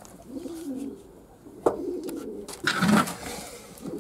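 Fantail pigeons cooing, low wavering coos repeated. A sharp click comes a little before halfway, and a brief louder rustle with a thump about three quarters of the way in.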